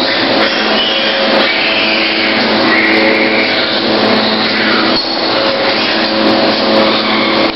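Loud, steady din inside a pig farrowing house: a constant whooshing drone with a few faint humming tones, and brief higher sounds rising and falling over it.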